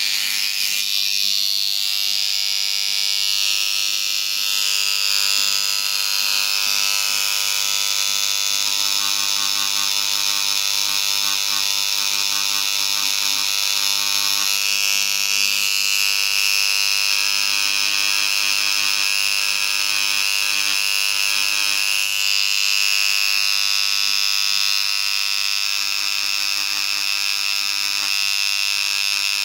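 Power engraving pen buzzing steadily as its point cuts lines into polished granite, engraving a portrait along scratched guide lines.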